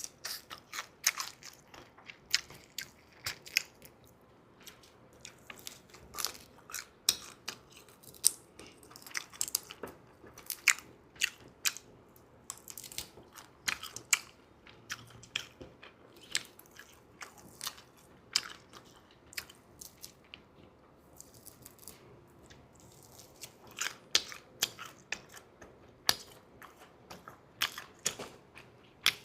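Close-miked chewing and biting: a steady run of irregular crunches and moist clicks from a person eating chewy, dry-textured seafood.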